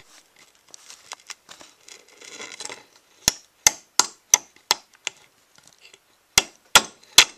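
Hammer tapping a galvanized nail down as a pin through the steel head and wooden handle of a pickaroon, metal on metal: six quick light taps about three a second, a short pause, then three more. Before the tapping there is faint handling and a few small clicks.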